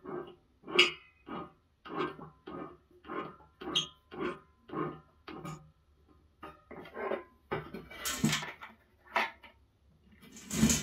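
Rhythmic squeaking and scraping, about two strokes a second, as an angle grinder is twisted back and forth into its metal mount on a stainless-steel pot, with a couple of louder rasping bursts near the end.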